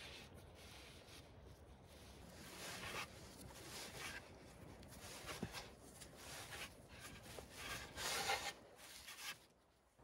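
Hands kneading bread dough on a floured wooden board: soft, irregular rubbing and pressing, loudest about eight seconds in.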